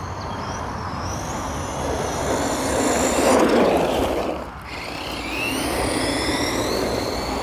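Tamiya Twin Detonator RC car with two brushless motors running on tarmac: a high-pitched electric motor whine rising and falling with the throttle over a rushing noise. The sound is loudest about three and a half seconds in, dips sharply just after four seconds, then builds again.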